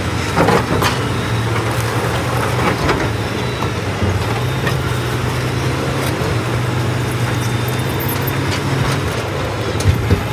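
Diesel engine of a tracked heavy machine running steadily under load, with a few sharp knocks and clanks, a pair near the start and a pair near the end.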